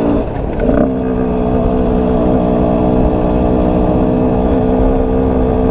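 Dirt bike engine running at steady revs, close to the rider's helmet camera while riding. Its note drops about half a second in, then holds steady.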